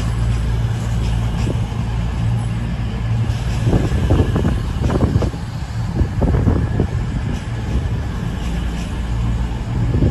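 Underfloor diesel engines of a CrossCountry Voyager train running, a steady low hum. Rougher rumbling surges come and go in the middle.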